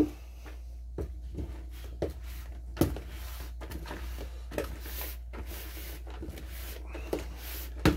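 Hands mixing loose rye grain and coco coir substrate in a plastic tub: irregular rustling with a few sharper knocks against the plastic, the loudest near the end.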